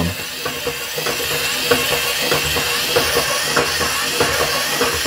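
Two toy walking robots running on a tabletop: a steady whir from the large robot's TT geared motor, with the small wind-up robot's clockwork running, and rapid plastic clicking as their feet step on the table.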